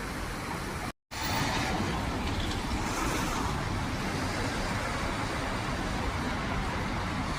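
Steady road traffic noise with a low rumble, broken by a brief drop to silence about a second in.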